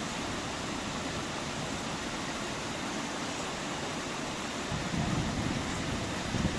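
Steady rushing of a shallow stream flowing over rocks, with a low rumble that grows stronger about five seconds in.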